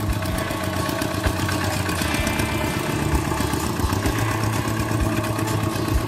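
Kubota walk-behind hand tractor's single-cylinder diesel engine running steadily as it pulls a disc plough through dry soil.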